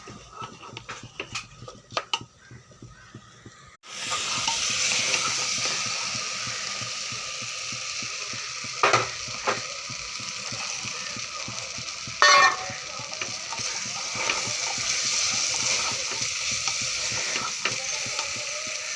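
Food frying in hot oil in a pot, a steady sizzle that sets in suddenly about four seconds in after a few light clicks. A few sharp knocks, likely a stirring spoon against the pot, come in the middle.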